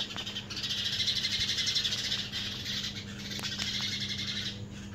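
Many small birds chirping rapidly and continuously in a busy chorus, easing off briefly near the end, over a steady low hum.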